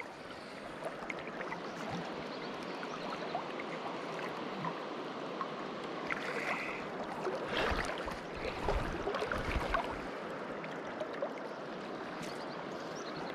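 River water flowing steadily over stones, a continuous rushing, with a few louder swells of water noise in the middle.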